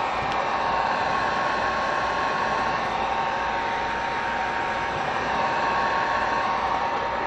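Electric heat gun running steadily, its fan blowing with a faint steady whine, as it heats heat-shrink tubing over a crimped ring terminal on the wire end.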